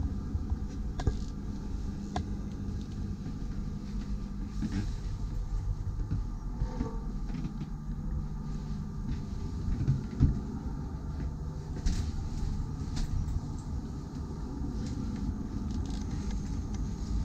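Steady low machinery hum aboard a motor yacht, with a few short knocks and clicks, the loudest about ten seconds in.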